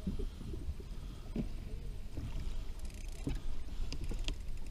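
Water splashing and slapping against the side of a small boat as a large kob is lifted in a landing net, with a few short splashes and knocks over a low wind rumble on the microphone.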